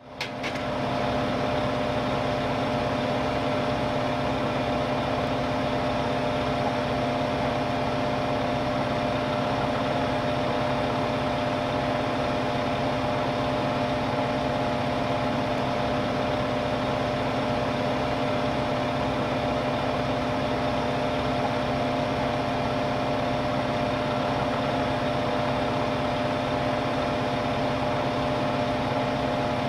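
A vehicle engine idling steadily, an even hum with a constant pitch.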